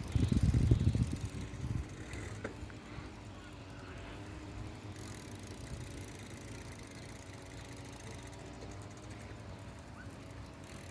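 Wind buffeting the microphone during a bicycle ride, loudest in the first two seconds, then a steady low hum.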